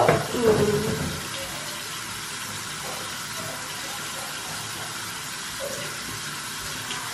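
Bathroom sink tap running steadily with hot water. A brief vocal sound, louder than the water, comes right at the start.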